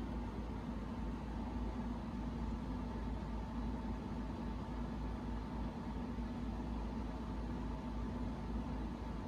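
Steady machine hum with a low rumble and a light hiss, unchanging throughout.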